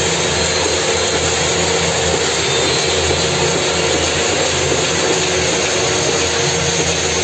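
Dense, continuous din of many people clapping and banging on metal plates and utensils from crowded apartment balconies, a collective salute to frontline workers against the coronavirus.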